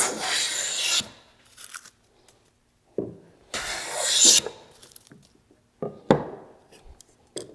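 Wooden hand plane cutting shavings from a board: two hissing strokes of about a second each, one at the start and one about three and a half seconds in, with a few knocks between them.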